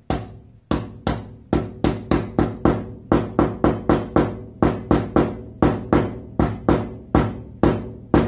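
Dead blow hammer knocking a tight-fitting laser-cut 6 mm acrylic panel into its slots: a steady run of sharp knocks, about three a second.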